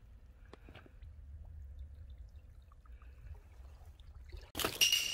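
Faint sloshing of shallow seawater at a rocky shoreline, with a low rumble and a few faint ticks, then a sudden loud rush of noise near the end.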